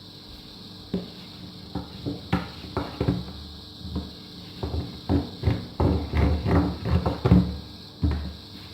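Thin wooden rolling pin (oklava) pressing and rolling out folded dough on a board, with irregular knocks and low thuds that come more often in the second half.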